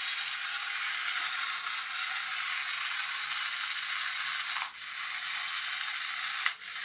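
Battery-powered toy locomotive's small electric motor and plastic gear train whirring steadily, its wheels spinning freely off the ground. The whir cuts out briefly twice, a little before five seconds in and again near the end, with a click on the second, as the forward/reverse switch is flicked.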